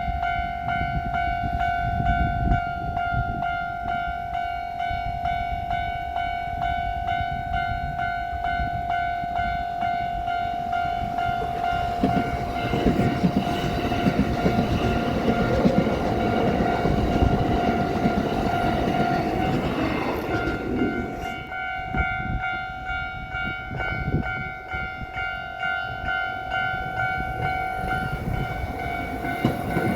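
Japanese level-crossing warning bell ringing in a fast, even rhythm. A train passes through the crossing from about twelve to twenty-one seconds in, a loud rush of noise under the bell.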